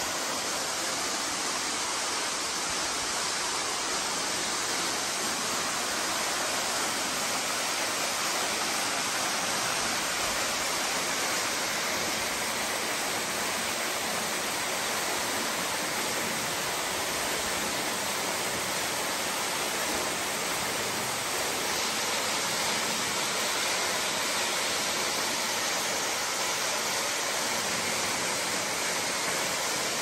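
Thin waterfall splashing into a shallow plunge pool: a steady rush of falling water, more hiss than rumble.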